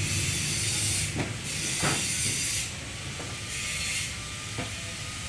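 Steady background hiss with a low hum beneath it, and a few faint short clicks.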